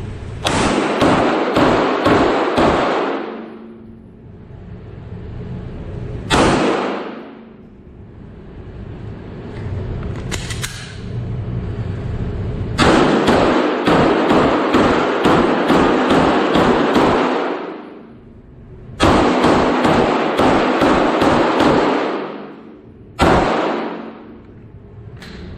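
Glock 17 9mm pistol fired in quick strings of shots, about two to three a second, with a few single shots between the strings. Each string leaves a long echoing tail.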